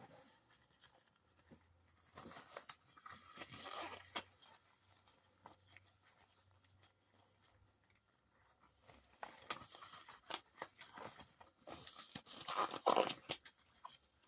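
Packaging crinkling and tearing as it is handled, in three crackly bouts with quiet in between; the last, near the end, is the loudest.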